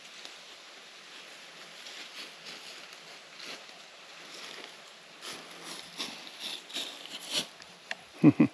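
Footsteps crunching and rustling through dry leaves on a woodland trail, thickening into several quick steps about five seconds in. A short, loud, low thud near the end.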